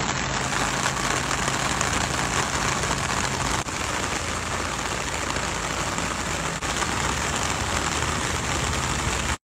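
Steady heavy rain hiss with a vehicle engine idling underneath.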